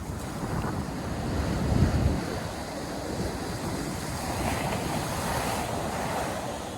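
North Sea surf washing onto the beach, with wind buffeting the microphone in low gusts, strongest about two seconds in. The hiss of breaking water swells from about four seconds in.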